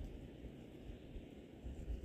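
A steady chorus of nighttime crickets, a high even trill, over a low rumble of light wind on the microphone that swells briefly near the end.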